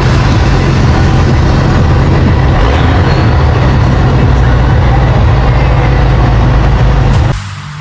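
Turbocharged Mercedes 1113 six-cylinder diesel in a 1976 Chevrolet C60 truck, running loud and steady close to the microphone. It cuts off suddenly near the end, and quieter background music takes over.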